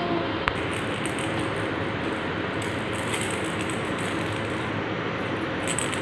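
Steady background hiss throughout, with a single sharp click about half a second in. Faint light rattling from a baby's plastic toy rattle, strongest as it is shaken near the end.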